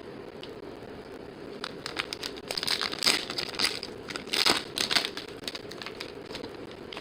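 Crinkling foil wrapper of a trading card pack being handled and torn open: a run of crackly rustling that starts about a second and a half in, peaks twice, and dies away a couple of seconds before the end.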